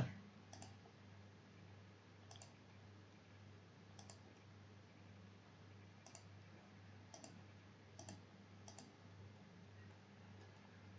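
Faint computer mouse clicks, about seven spread unevenly, over a low steady hum.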